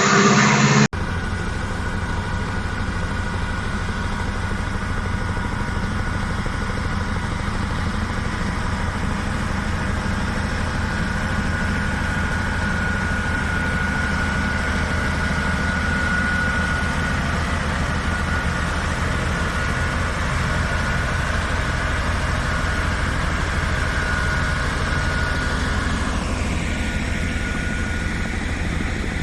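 A machine engine idling steadily, a low even pulsing with a thin, steady high whine over it.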